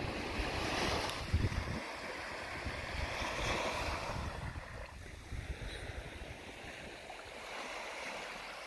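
Sea surf washing onto the beach in slow swells, with wind gusting on the microphone through the first two seconds.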